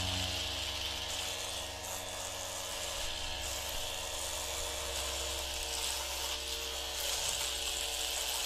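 Electric hair clippers buzzing steadily, with a low hum and a hiss on top.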